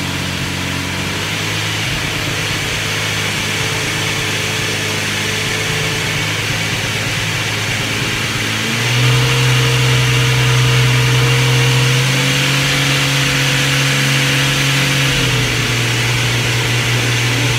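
Jeep Grand Cherokee WJ's 4.0 straight-six engine running at idle. About halfway through the engine speed rises and it gets louder, then eases off slightly a few seconds later.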